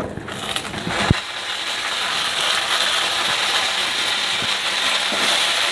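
Fresh mint leaves sizzling steadily in hot oil in a clay pot just after being tipped in, with a short knock about a second in.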